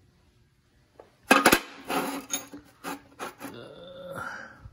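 Rusty steel bars clanking and scraping against each other as they are picked up and handled: one sharp clank just over a second in, then several lighter knocks and a rubbing scrape.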